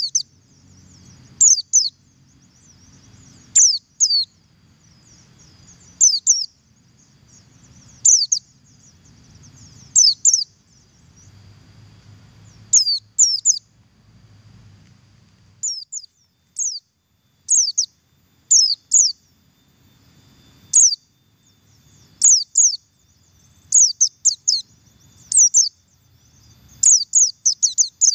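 Pleci buxtoni white-eye calling: short, sharp, high chirps that slur downward, often doubled, repeated every second or two.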